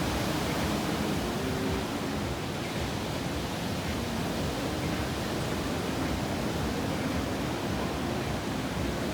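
Steady rushing noise of ocean surf breaking on a reef.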